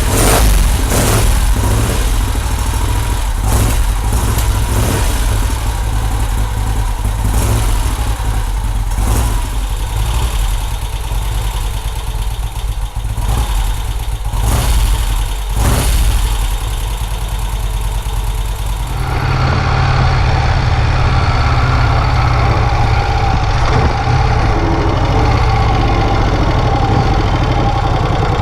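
1951 Vincent Rapide's 998 cc V-twin engine running on the road, a low steady rumble under a loud hiss. About 19 seconds in the sound changes abruptly, the hiss dropping away and the engine note steadier.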